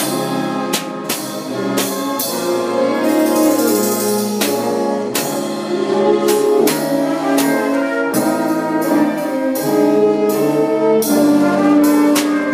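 A band with brass playing a slow ballad in sustained chords, over a drum kit with cymbal and drum strokes landing about once a second.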